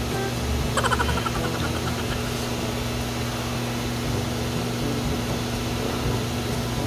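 A steady low hum with a hiss over it, like a running fan or air conditioner, and a brief higher sound about a second in.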